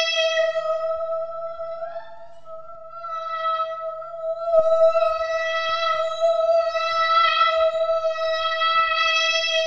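Music: a single sustained high electronic-sounding tone, held at one pitch with a rich set of overtones and a brief sliding note about two seconds in.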